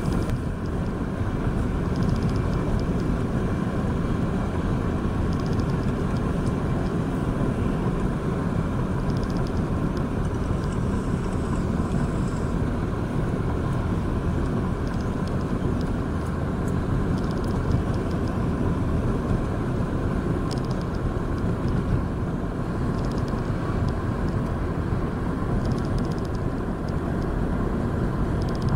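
Steady drone of a car driving at speed, engine and tyre noise heard from inside the moving vehicle.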